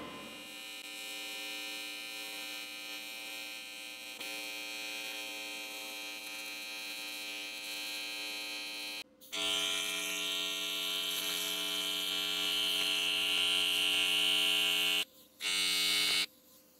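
AC TIG welding arc on aluminum at about 115 amps, a steady buzz. It cuts out about nine seconds in and comes back louder, then stops briefly near fifteen seconds and cuts off for good shortly before the end.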